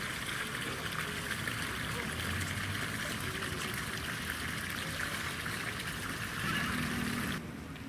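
Steady trickle of running water that stops abruptly near the end.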